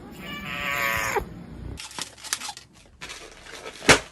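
An animal's drawn-out cry of about a second that drops in pitch as it ends, followed by scattered clicks and one sharp knock near the end.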